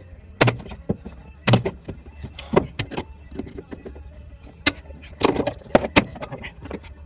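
Sharp metallic snaps and clanks at irregular intervals, about ten in all, over a steady low hum, while a replacement rocker panel on a 1973 Camaro is spot welded in.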